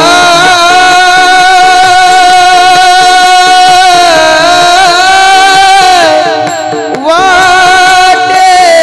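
A singer holding one long, high note of a Marathi devotional bhajan, which sinks briefly about six seconds in and then glides up and is held again, over a steady accompanying drone.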